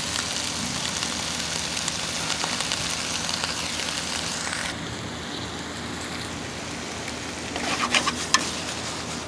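Sliced onions, peppers and tomatoes sizzling steadily in a nonstick skillet over a propane grill on high flame; the sizzle softens a little about halfway through. Near the end come a few sharp clatters as the pan is shifted on the grill.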